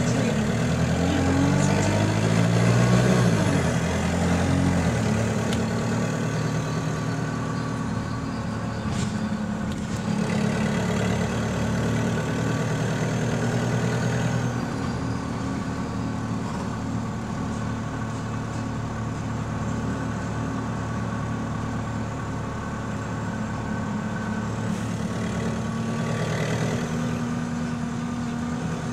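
Diesel bus engine heard from on board, with a burst exhaust: it pulls away for the first few seconds, its pitch rising, then runs on at a steady note.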